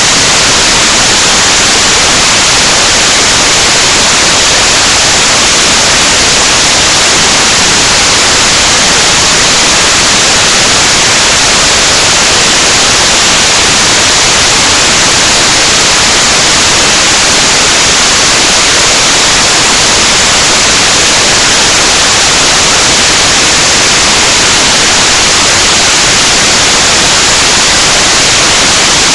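Loud, steady static hiss, an even noise with no breaks or changes.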